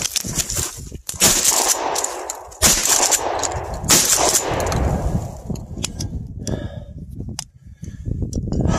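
Three shotgun shots, about a second and a half apart, each fading away in an echo, followed by faint clicks.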